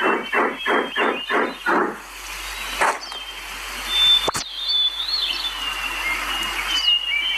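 Birds chirping over a steady outdoor hiss. For the first two seconds a fast, even run of pulses, about five a second, sits on top, and there is one sharp click about four seconds in.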